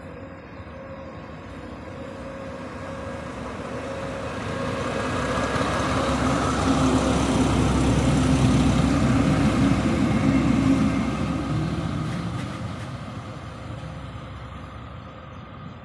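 A diesel locomotive in SNCF Fret livery, hauling yellow infrastructure vehicles, passes at moderate speed. Its engine drone and wheel rumble build up, are loudest about seven to eleven seconds in, then fade as it moves away. A few sharp clicks come near the end of the loudest part.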